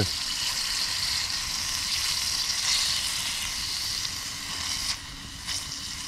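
Sliced mushrooms frying in oil in a pan over a low fire: a steady sizzling hiss that drops a little about five seconds in.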